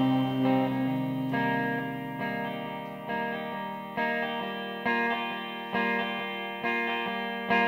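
Music: a sparse guitar passage with no vocals, a chord struck about once a second and left to ring, fading between strikes.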